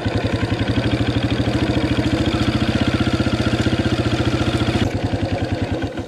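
Farm motorbike engine running steadily at low revs, with an even rapid pulse.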